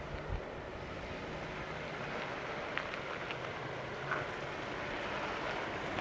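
Jeep Wrangler JK Rubicon crawling slowly over rock, its engine running low and steady under a steady hiss, with a few faint clicks midway.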